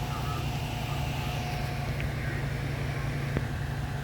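Fire engine's diesel engine idling steadily, with a faint steady tone that stops about halfway through and a single click near the end.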